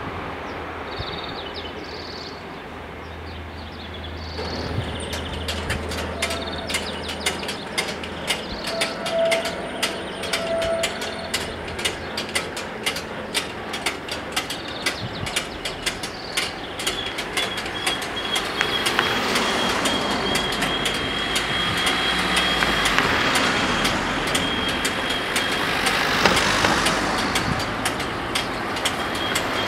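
Level crossing as the barriers rise after a train has passed. A low hum fades out in the first few seconds, then rapid mechanical clicking from the crossing equipment starts about four seconds in and keeps going. Near the end a car drives over the crossing, its road noise swelling and then passing.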